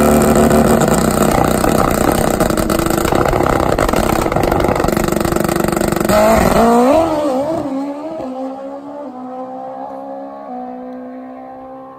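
Nitrous-fed Suzuki GS inline-four drag bike engine held at high revs on the starting line. About six seconds in it launches and pulls away down the track. The sound fades as it goes, its pitch stepping up through the gear changes.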